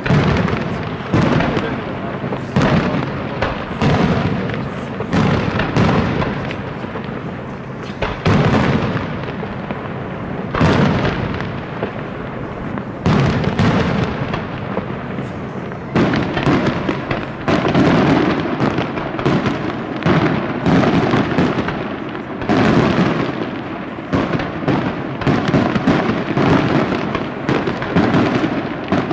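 Aerial fireworks display: shells bursting in quick succession, a sharp bang every half second to second with a rolling rumble between them, the bursts crowding closer together in the second half.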